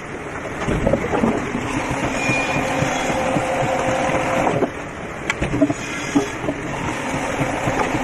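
Log debarking machine running, its ridged steel rollers turning a wooden post and stripping the bark. A steady mechanical rumble, with a few sharp knocks a little past the middle.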